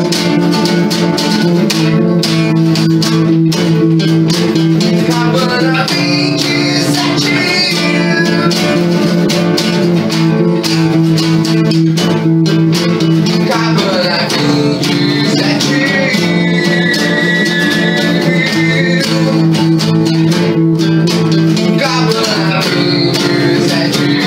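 Small band playing an acoustic rock song on guitars: strummed chords with a picked higher melody over them.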